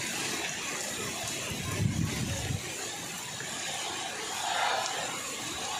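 Steady rain falling, an even hiss, with a brief low rumble about two seconds in.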